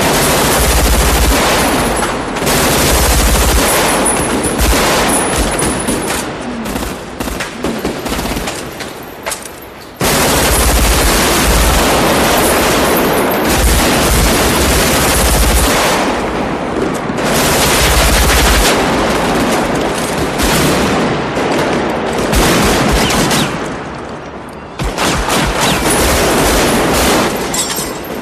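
Sustained automatic rifle fire in a street gunfight, bursts and shots following one another almost without pause. It thins out twice and then comes back abruptly at full force.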